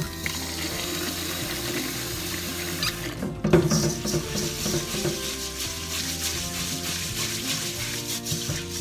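Tap water running into a stainless steel bowl of rice in a sink, then, after a knock about three and a half seconds in, hands scrubbing and swishing the wet rice grains in the bowl to wash them. Background music plays underneath.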